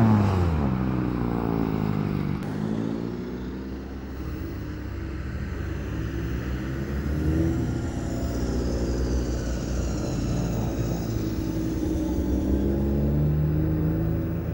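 Several cars driving past slowly one after another. Near the start one engine's note drops away as it passes, a steady low engine hum follows, and near the end another engine's note rises as it pulls closer.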